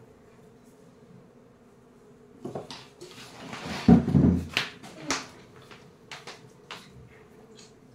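Plastic armchair shifting and scraping on a tiled floor as someone gets up from it, loudest about four seconds in, followed by a series of short, sharp knocks and steps.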